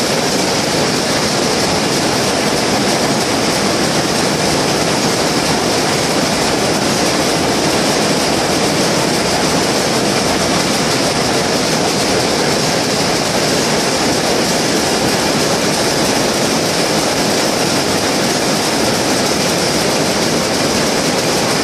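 Shuttleless towel-weaving loom running at speed: a loud, steady, fast mechanical clatter with no let-up.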